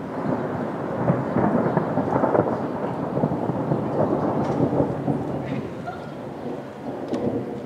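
A long rolling rumble of thunder. It breaks in suddenly, is loudest in the first few seconds, then slowly dies away.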